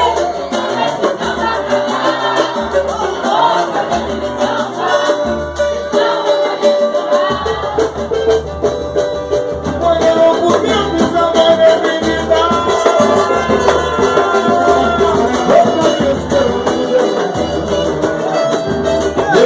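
Live samba band playing, with shaken and jingling hand percussion over a steady low drum beat about every 0.7 s, and held melodic notes with voices singing.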